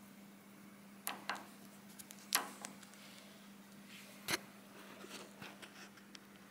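Quiet workshop with a faint steady hum and four light clicks and taps of a small reamer being handled in the lathe's drill chuck, the lathe stopped.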